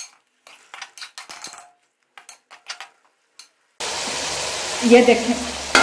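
A metal spoon giving a few scattered light clicks and taps against a metal cooking pot while chicken is stirred. About four seconds in, the steady sizzle of chicken frying in oil starts, with a spoon scraping the pot near the end.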